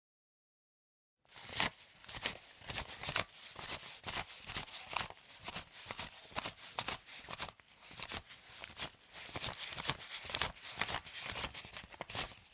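Paper banknotes being counted, flicked one after another in a quick, irregular run of crisp snaps and rustles that starts about a second in.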